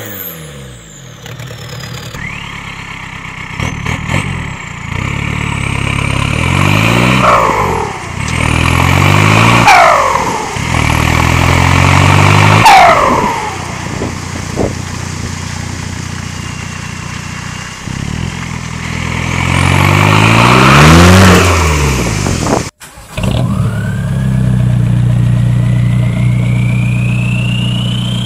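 TDI turbodiesel engines through straight-piped exhausts, heard across several clips. They are revved several times, each rev rising and falling in pitch. After a sudden break, one engine holds a steady idle under a thin whine that climbs slowly in pitch.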